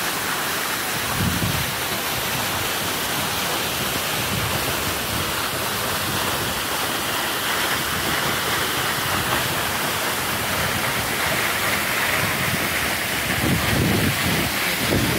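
A tall waterfall rushing steadily, with low rumbles of wind on the microphone now and then.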